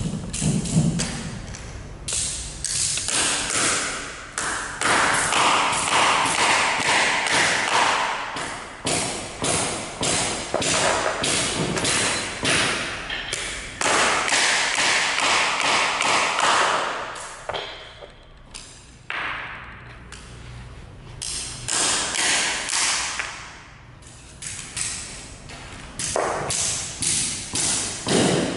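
Hammer nailing carpet gripper (tack strip) down onto a tiled floor: quick runs of blows, a few a second, with brief lulls about two-thirds of the way through.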